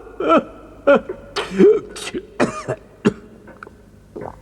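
A man's voice making a run of wordless sobbing and coughing noises: short wavering cries broken by breathy gasps, tailing off near the end.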